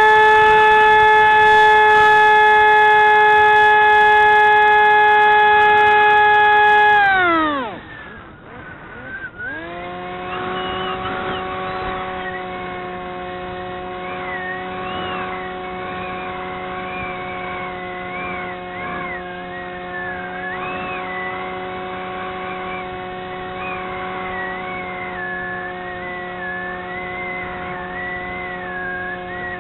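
Motor and propeller of a radio-controlled model plane heard from its onboard camera: a steady high whine that drops sharply in pitch about seven seconds in as the throttle is cut, a quieter spell of a couple of seconds, then a steady whine again at a lower pitch, with a higher wavering tone over it.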